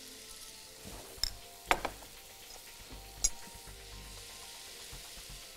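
Minced meat and onions sizzling softly in a stainless steel frying pan, with a few sharp clinks of a utensil, the clearest about a second and a half in and again about three seconds in.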